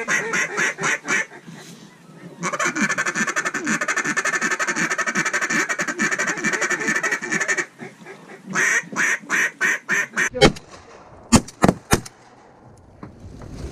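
Mallard duck call blown to incoming ducks: runs of quacks, with a long, rapid feed chuckle in the middle, then more quacks. A few sharp knocks come near the end.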